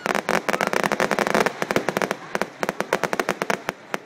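Fireworks going off in a rapid barrage of bangs and crackles, many a second, densest in the first second and a half and thinning out toward the end.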